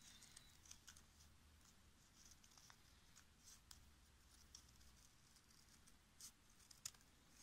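Faint snips of scissors cutting along a curve through red coloured paper folded into several layers, a string of short clicks at uneven intervals.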